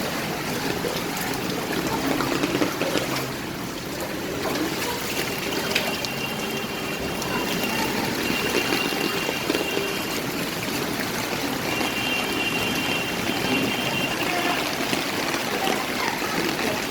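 Floodwater after heavy rain, running and trickling in a steady rush, with a thin high tone that comes and goes.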